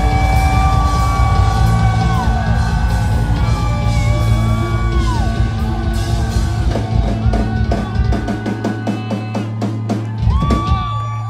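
Live rock band heard through a club PA: held guitar notes that bend in pitch over drums, then from about halfway a rapid flurry of drum and cymbal hits under a last held note, the big finish of a song.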